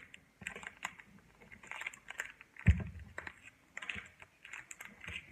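Handling and opening of Pokémon card packaging: scattered clicks and crinkly rustles, with one sharp knock about halfway through.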